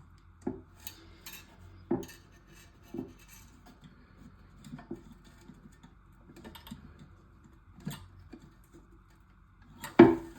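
Plastic toilet fill-valve parts being handled and pressed into place in the tank: a series of light clicks and knocks, roughly one a second, with one louder knock near the end.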